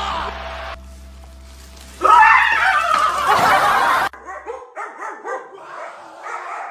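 A dog barking and yipping in short, excited calls. A loud run of calls cuts off abruptly about four seconds in, followed by quicker, fainter yips.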